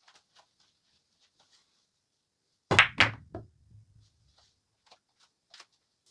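Pool shot on a 9-ball table: two sharp clacks about a third of a second apart, the cue tip striking the cue ball and then the cue ball hitting an object ball. A softer knock follows with a brief low rumble of a ball rolling, then a few light clicks.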